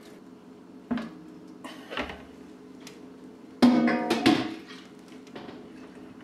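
Wort being poured through a plastic funnel into a glass gallon jug, with a couple of sharp knocks and, a little past halfway, a louder ringing clank that dies away over about a second.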